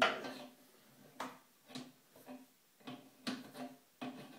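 Adjustable spanner clicking and knocking against the metal supply-pipe nut at the toilet cistern's water inlet as the nut is worked loose: a handful of separate sharp clicks, the loudest at the start.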